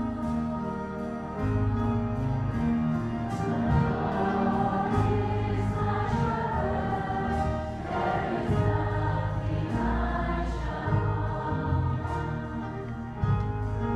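A girl singing a church song into a microphone over instrumental accompaniment with long held bass notes, other voices singing along with her.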